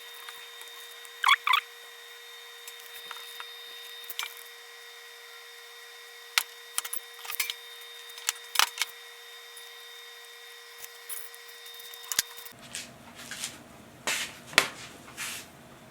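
Scattered knocks and clicks of hand tools and small parts being handled and set down on a wooden board, with a sharp double knock about a second in and a cluster of knocks near the end.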